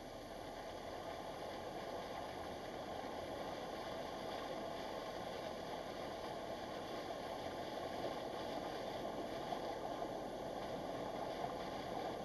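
A car's tyres driving through floodwater on the road, giving a steady rush of water spray and splashing, heard from inside the cabin. It grows louder over the first few seconds, then holds steady.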